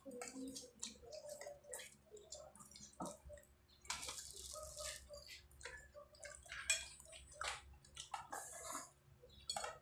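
Close-up eating sounds of spaghetti: wet slurps of noodles being sucked in, chewing and small mouth clicks, in quick irregular succession.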